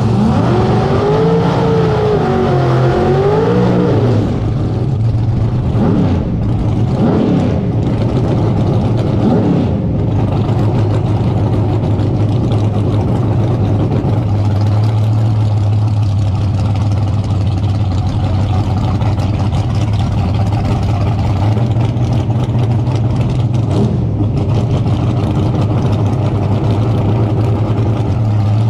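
Car engine revving up and down in pitch over the first few seconds, a few more rising and falling revs, then a steady low engine drone for the rest.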